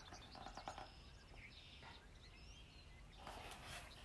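Near silence, with a few faint bird chirps in the background, then the soft rustle of a large picture-book page being turned near the end.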